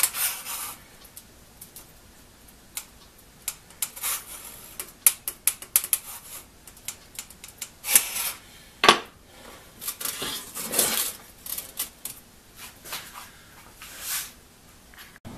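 Small steel saw-set gauge clicking and scraping against the teeth of a one-man crosscut saw blade as it is moved from tooth to tooth, checking the set of each tooth. It makes irregular light metal clicks with a few short scrapes.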